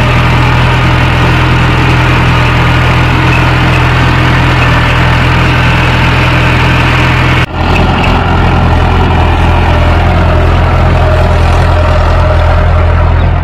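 Mahindra 415 DI tractor's four-cylinder diesel engine running steadily while pulling a spring-tine cultivator through soil. The sound breaks off for an instant about seven and a half seconds in and resumes with a slightly deeper drone.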